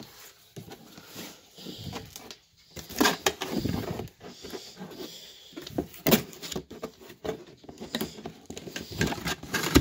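Cardboard box being handled and its flaps folded and pushed closed: irregular scraping, rustling and knocks of cardboard, with louder knocks about three and six seconds in and near the end.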